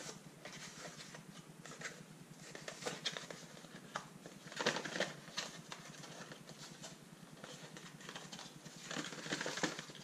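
Cardboard packaging being handled: scraping and rustling as a small box's cardboard sleeve is slid apart from its inner box, louder about halfway through and again near the end.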